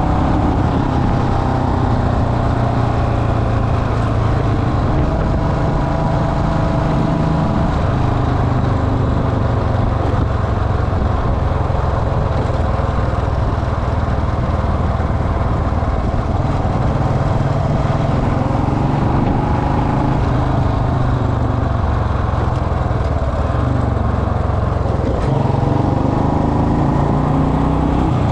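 Royal Enfield Bullet Electra's single-cylinder engine running while riding, its pitch drifting up and down with the throttle.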